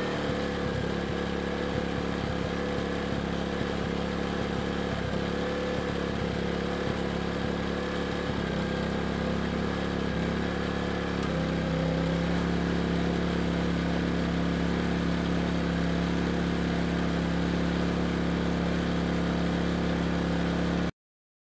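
Erayak 4500PD dual-fuel inverter generator running steadily on gasoline. Its engine speed steps up slightly twice, about eight and twelve seconds in, and the sound cuts off suddenly near the end.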